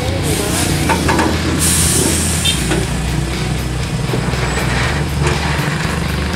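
Heavy truck engine running low and steady as it hauls a loaded lowboy trailer slowly past. A short burst of hissing comes about two seconds in.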